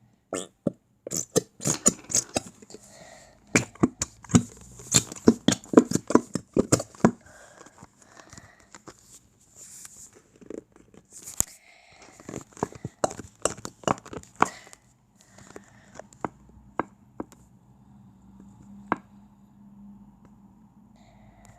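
Plastic bottle of glue being squeezed and handled as the glue is poured out: a dense run of sharp clicks and crackles that thins to scattered clicks after about half the time.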